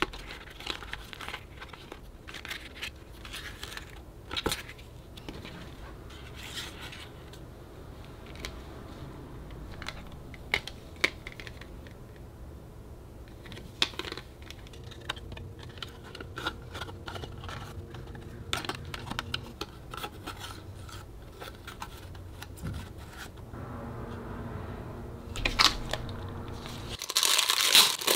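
Paper and cardboard merchandise being handled: scattered light taps and rustles. Near the end comes loud crinkling as a clear plastic sleeve around a book is handled and opened.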